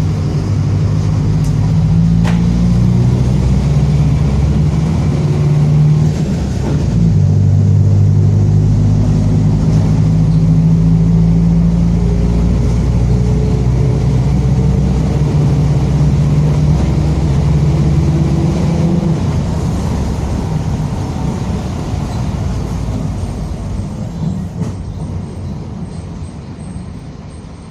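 Mercedes-Benz OF-1722M front-engined bus running under load, with the growl of its differential. There is a short break about seven seconds in, like a gear change, then a long steady pull, and the sound eases off from about two-thirds of the way through as the bus slows.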